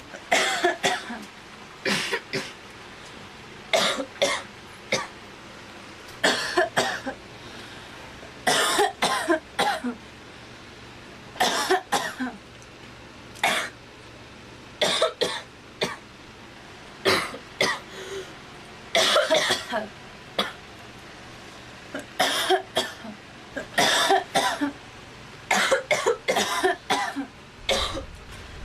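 A girl coughing over and over, in short bouts of two to four coughs that come every one to two seconds.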